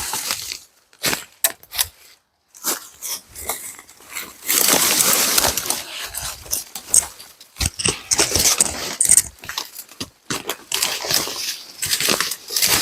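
Irregular rustling and crunching of brush and dead leaves, in bursts of varying length with short pauses between them.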